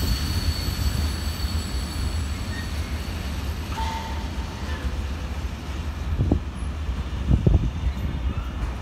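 Freight train of hopper wagons rolling past: a steady low rumble of wheels on rail, with a faint high whine fading out over the first few seconds and a few sharp knocks near the end.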